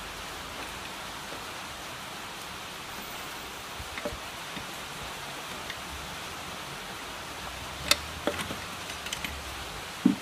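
Steady hiss with a few sharp metallic clicks and taps from a socket wrench on the connecting-rod cap bolts of a stripped engine block. The clicks fall once about four seconds in and in a cluster around eight to nine seconds, with a louder knock at the very end.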